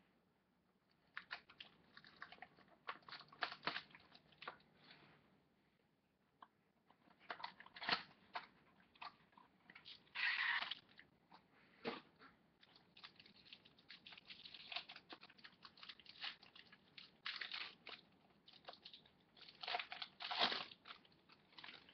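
Crinkling and rustling of a trading-card box and its foil pack wrapper being opened by hand, in irregular crackles and clicks. The loudest bursts come about ten seconds in and again near the end.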